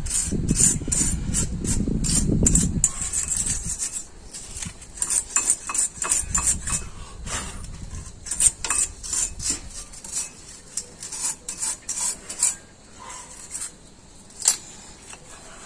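Wire brush scrubbing dirt and rust off the pad seats of a Renault Mégane I front brake caliper bracket: rapid scratchy strokes, heaviest in the first few seconds, then lighter scraping, with a sharp metal click near the end.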